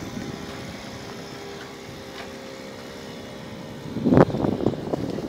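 A steady engine hum from a boat on the water. About four seconds in, gusts of wind start buffeting the microphone and become the loudest sound.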